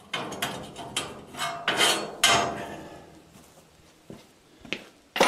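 Steel parts and hand tools clanking together as they are handled: several sharp knocks with a short metallic ring in the first three seconds, then a few lighter clicks.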